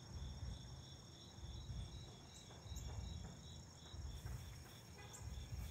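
Crickets chirping in the background, a faint steady pulse of about four chirps a second over a thin steady high drone, with a few faint clicks.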